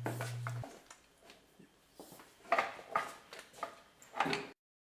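A low steady hum that stops about half a second in, then a few sharp metal clinks and clatters as the hub nut and impact-wrench socket are handled at the wheel hub.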